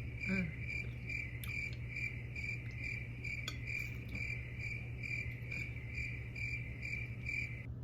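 Cricket chirping in a steady rhythm of about two chirps a second, stopping abruptly near the end, over a low steady hum.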